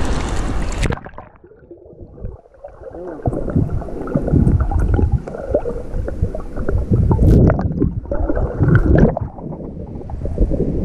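Sea waves and wind on the microphone; about a second in the sound suddenly goes muffled, turning into irregular gurgling and sloshing of seawater as the microphone goes under the water.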